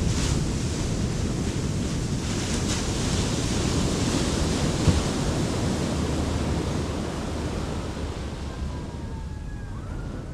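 Wind buffeting the microphone over ocean surf breaking on the shore, with a single knock about five seconds in. A faint wailing siren rises and falls near the end.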